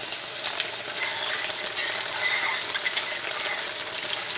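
Chicken pieces frying in hot oil and masala in a wok: a steady sizzling hiss with scattered small crackles. The masala has cooked down and released its oil.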